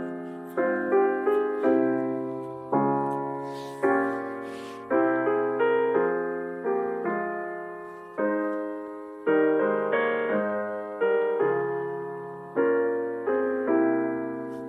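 Slow solo piano music: sustained chords struck about once a second, each fading away before the next.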